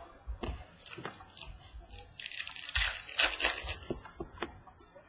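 A Prizm Draft baseball card pack wrapper being torn open and crinkled, a dense burst of tearing and crackling in the middle, with light clicks and rustles of cards being handled around it.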